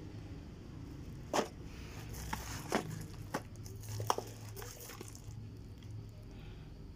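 Plastic-wrapped chocolate boxes and packs being handled and set down, with crinkling of plastic film and about five sharp taps between one and four seconds in. A low steady hum runs underneath.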